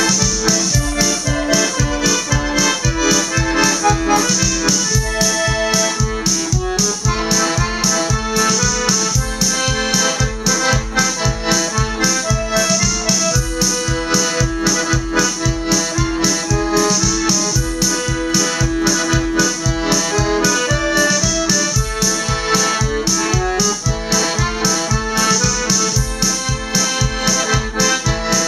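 Hohner piano accordion playing a held-note melody over a Casio keyboard's backing accompaniment with a steady programmed drum beat.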